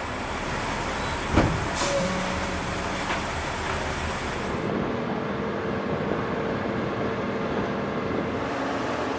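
Heavy military truck's diesel engine running steadily among flight-line noise, with one sharp knock about a second and a half in. The sound turns duller about halfway through.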